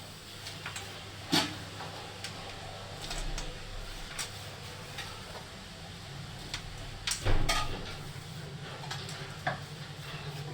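A spoon stirring and scraping jaggery with a little water in a kadhai, at the start of making jaggery syrup. There are two sharper knocks against the pan, one about a second and a half in and one about seven seconds in, over a low steady hum.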